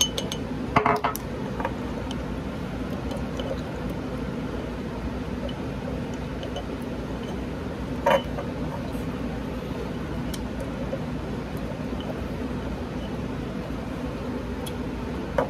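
A utensil stirring a thick flour-and-water sourdough starter in a glass mason jar, scraping and knocking against the glass. There are a few sharper clinks about a second in and around eight seconds in, over a steady low background hum.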